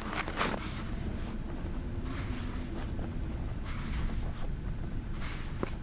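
Wind rumbling on the microphone, with a few faint scrapes of a snow shovel digging into snow.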